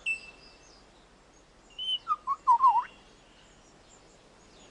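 Superb lyrebird singing: a brief high note, then about two seconds in a quick run of short whistled notes that waver and dip in pitch, with quiet between.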